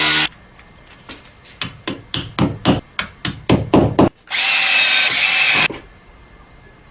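A small power tool running in short bursts: it cuts off just after the start, a dozen or so quick irregular knocks follow, then it runs again for about a second and a half.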